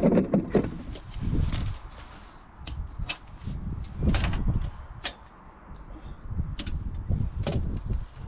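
Scattered sharp clicks and knocks from hands working around the bed's steel frame under the seat, roughly one a second in the second half, over a low rumble.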